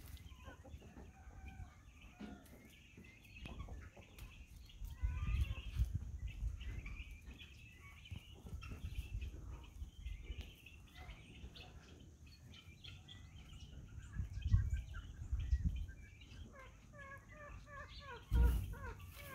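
Cochin chickens clucking while they forage, scattered short calls with a quicker run of repeated clucks near the end. A few low thumps come in between.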